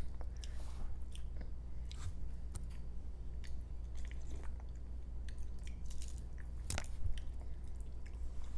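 Close-up chewing and biting of balut, boiled duck egg embryo: irregular wet mouth clicks and smacks with a little crunch, one sharper click about seven seconds in, over a steady low hum.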